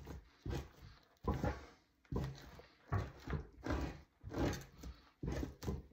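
Two-handled fleshing knife scraping fat and flesh off a beaver hide stretched over a wooden fleshing beam. It makes repeated downward strokes, a little under one a second.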